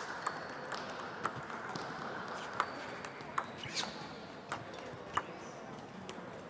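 Table tennis rally: the ball clicking sharply off the rackets and the table about once or twice a second at an uneven pace, over a steady murmur of a busy sports hall.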